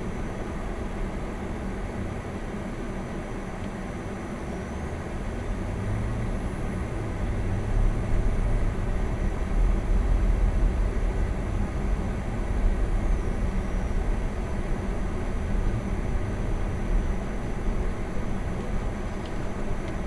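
Car engine and tyre noise on a snow-packed road, heard from inside the cabin: a steady low rumble that grows louder about six seconds in as the car picks up speed.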